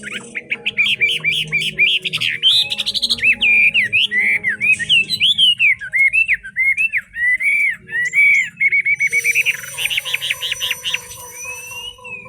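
Chinese hwamei singing a long, varied song of loud whistled notes that slur up and down, breaking into a fast trill of repeated notes near the end.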